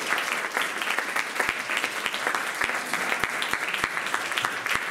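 Audience applauding, many hands clapping steadily and densely.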